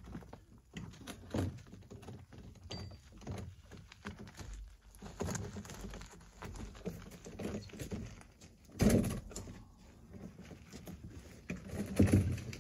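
Footsteps of gumboots on a dirt path, then irregular heavy thuds of large river stones being unloaded from the back of an SUV and dropped on the ground. The loudest thud comes about nine seconds in, with more close together near the end.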